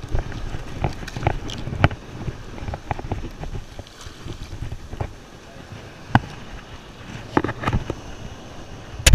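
Wind rumbling on the microphone and surf washing up over wet sand. Scattered sharp clicks and knocks come from handling a landed shark and working at the hook and leader with pliers, with a louder cluster near the end.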